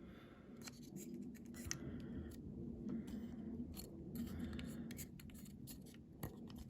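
Seat unit being pushed and worked into the body of a diecast toy ambulance: faint scraping and scratching with scattered light clicks.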